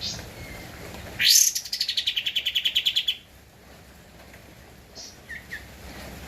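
A kapas tembak songbird singing. A loud high note falls away into a fast, even trill of about ten notes a second that lasts some two seconds, with a few short chirps before and after.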